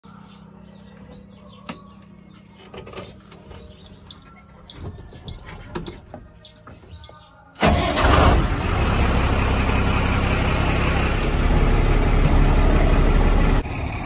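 Ignition key handled and turned in a Tata 2518 tipper truck's cab, with scattered clicks and a light repeating tick, then about halfway the truck's diesel engine starts abruptly and runs steadily and loudly before the sound breaks off near the end.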